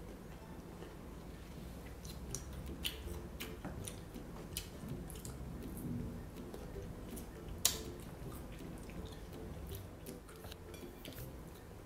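Mouth sounds of someone chewing mango slices: wet chewing with many short scattered clicks, one sharper click about two-thirds of the way through.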